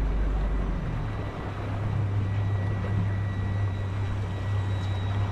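A boat's engine running at low speed, a steady low hum whose note steps up about a second in.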